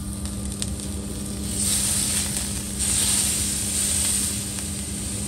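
Steak sizzling on a hot flat-top griddle as it is held on edge with tongs to sear its sides. The sizzle surges loudly about a second and a half in and again around three seconds, over a steady low hum.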